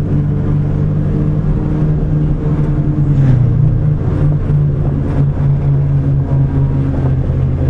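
Truck engine running steadily while driving, heard from inside the cab with road noise; its note drops slightly about three seconds in, then picks up again.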